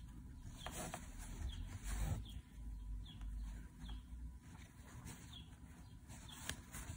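Faint rustle of a needle and thread being drawn through cloth in an embroidery hoop, with a bird chirping short falling notes over and over in the background.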